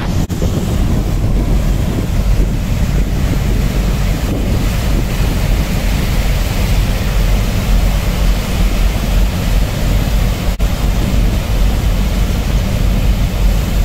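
Strong wind buffeting the microphone over a steady rush of churning water: a tug's propeller wash as it runs at full thrust against a mooring line in a bollard pull test.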